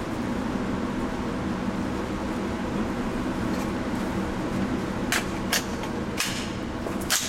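Steady mechanical hum of ventilation, with four short sharp clicks in the second half, the loudest near the end.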